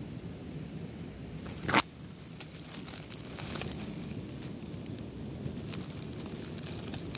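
Outdoor rumble on a phone microphone, with one loud brief rustle a little under two seconds in and scattered faint ticks after it.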